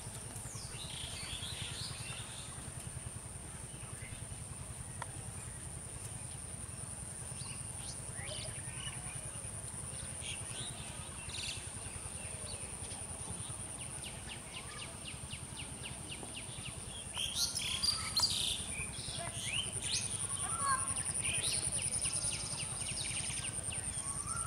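Rural field ambience: a steady high-pitched insect buzz, with birds chirping and calling over it. A fast, even trill sounds for about two seconds past the middle, and the loudest chirps come just after it.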